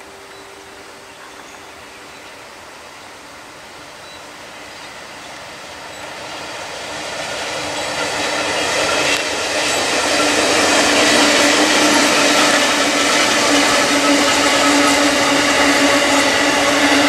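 Two Aurizon P class diesel locomotives hauling a grain train, their engine drone growing louder as they approach from about six seconds in. The steady engine sound then holds as the locomotives and grain hopper wagons roll past.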